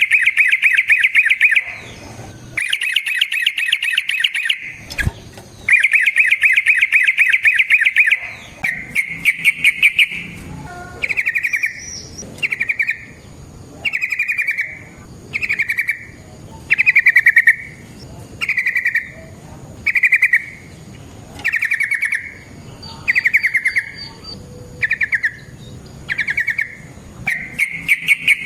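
Yellow-vented bulbul (trucukan) singing loudly in long, rapid rattling trills, then a run of short trilled phrases repeated about once a second and a half.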